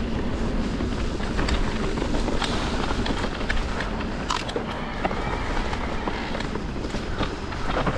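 Electric mountain bike's knobby tyres rolling over a dirt trail strewn with dry leaves, with steady rumble and many scattered crackles and clicks from leaves, twigs and the bike rattling over the ground.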